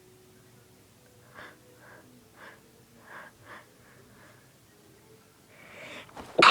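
A woman's build-up to a sneeze: about six short sharp breaths, then a swelling gasping inhale, and the sneeze bursting out loudly right at the end.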